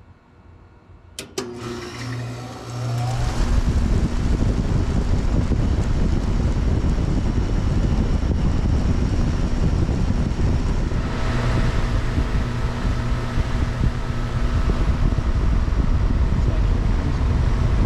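Goodman GSH13 heat pump outdoor unit starting up in heat mode: a couple of sharp clicks about a second in, a short low hum, then the compressor and outdoor fan come on about three seconds in and run steadily.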